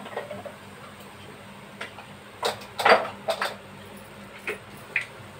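A few short clinks and knocks of kitchen containers and utensils being handled, the loudest about three seconds in.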